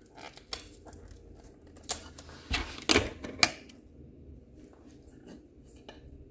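Handling noise from the wooden base of a flat-pack stand being turned over in the hands: scattered clicks and knocks, the two loudest about three seconds in, then quieter rustling.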